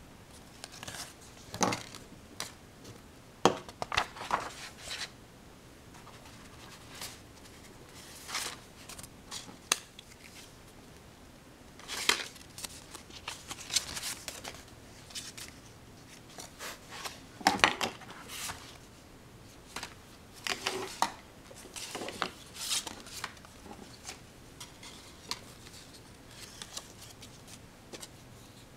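Scattered short clicks, taps and rustles at irregular intervals, a few of them sharper knocks, over a quiet steady background.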